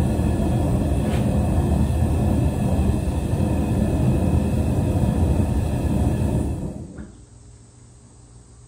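Propane torch burning with a steady low rumble as it heats a 1095/15N20 Damascus blade to quenching temperature in a small can forge. The sound dies away about seven seconds in.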